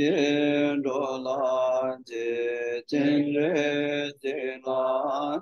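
A man chanting a Buddhist liturgy in a steady sung voice, held on near-level pitches with small slides, in phrases of one to two seconds broken by short breaths.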